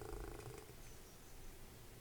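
Domestic cat purring close by, a soft, low, rapidly pulsing rumble that is stronger in the first half-second and eases off after that.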